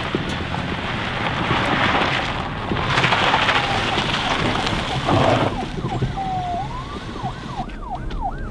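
Car tyres crunching over a gravel drive, a steady rushing noise, then about six seconds in a police siren starts: a slow rising wail that turns into quick up-and-down yelps, two or three a second.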